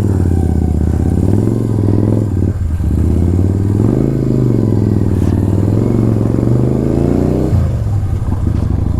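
Motorcycle engine running while riding, its pitch rising and falling with the throttle, dropping briefly about two and a half seconds in and again after seven seconds.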